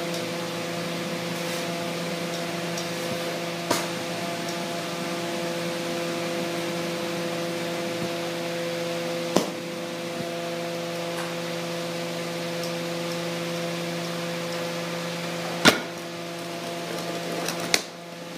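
Steady hiss and hum of a glassblowing bench torch and its ventilation. Four sharp clicks are spread through it. The sound drops in level after a click near the end.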